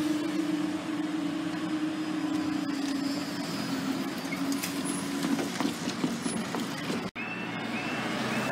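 Road vehicles crossing a level crossing, with a steady low engine hum that slowly fades. About seven seconds in, the sound cuts to a level crossing's warning alarm: a short warbling tone repeated about twice a second, the signal that the barriers are about to lower.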